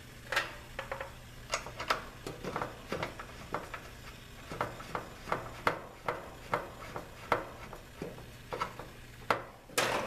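Service-valve caps on an air conditioner's condensing unit being threaded on and tightened: a string of small metallic clicks and clinks, about one or two a second, over a faint steady low hum.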